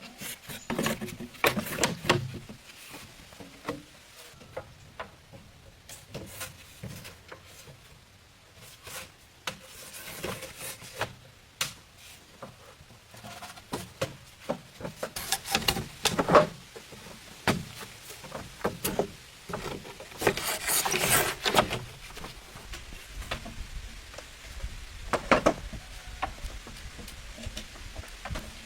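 Wood or bamboo being handled: scattered knocks and taps with rubbing, and a longer rustling scrape about twenty seconds in.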